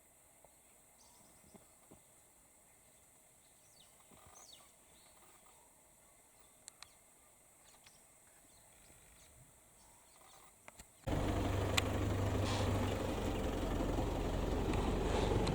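Quiet bush ambience with a few faint clicks and bird chirps. About eleven seconds in, a loud, steady low engine rumble cuts in abruptly and runs on.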